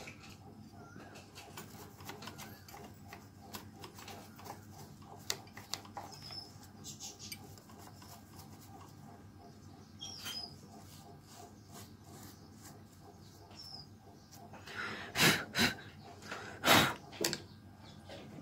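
A cloth wiping and rubbing around a sewing machine's metal rotary hook and bobbin-case area: faint light clicks and rubbing, then a few louder rubbing strokes about three-quarters of the way through.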